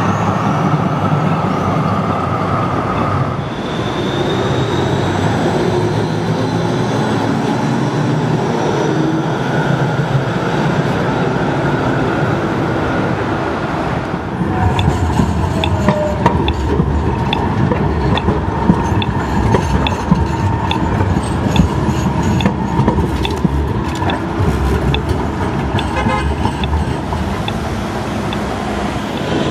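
Trams and road traffic running through city streets, with a tram passing close at the start. In the second half a steady ticking repeats a little over once a second.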